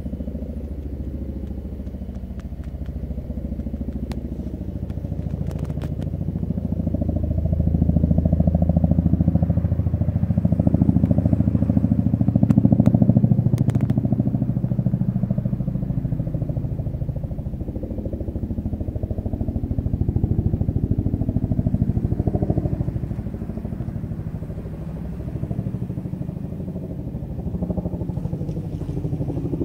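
Boeing CH-47 Chinook tandem-rotor helicopter flying overhead: loud, rapid, deep rotor beat that swells to its loudest about twelve seconds in, then slowly fades.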